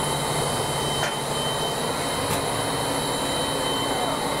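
Steady hiss and hum of a steam locomotive standing under steam, heard inside its cab, with a thin, constant high whine over it.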